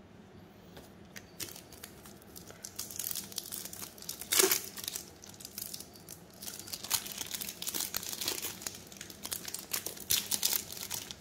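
Foil trading-card booster pack wrapper crinkling and tearing as it is ripped open, in irregular crackles with a louder rip about four seconds in.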